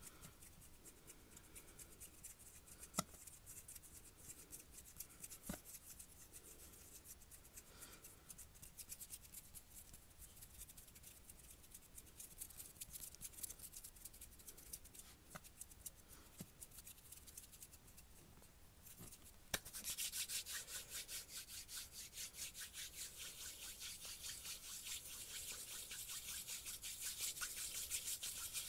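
Close-miked hands rubbing and brushing softly, with a few light taps, for most of the stretch; about two-thirds through, the palms start rubbing briskly together, a louder, fast, even run of swishing strokes.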